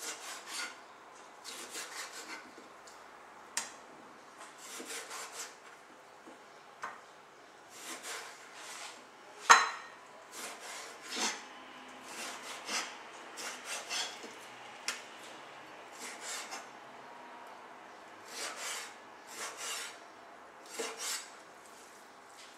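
Chef's knife cutting and scraping through a raw Nile perch fillet on a cutting board: a string of short, irregular scraping strokes, with one sharp knock about halfway through.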